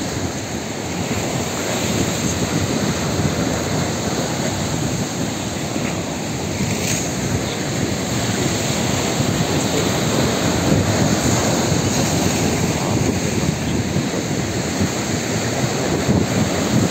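Sea surf washing steadily against the boulders of a rock breakwater, with wind blowing on the microphone.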